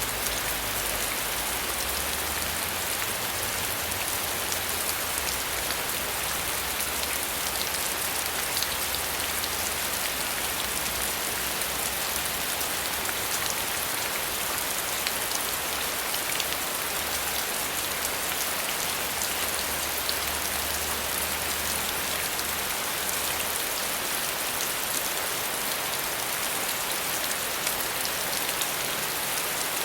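Steady rain falling on a surface, a dense even hiss with fine drop ticks scattered through it and a faint low rumble that comes and goes.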